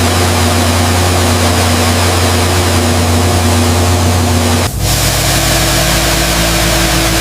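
Engine running with a steady drone and an even hiss over it. About four and a half seconds in it cuts abruptly to a different, deeper steady drone.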